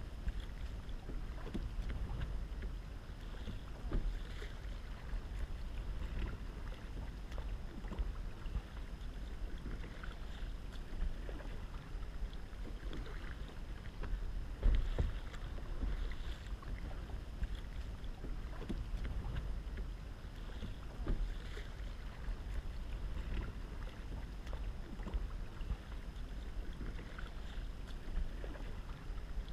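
Double-bladed kayak paddle dipping and splashing in calm water, a stroke about every two seconds, over a steady low rumble of wind on the microphone.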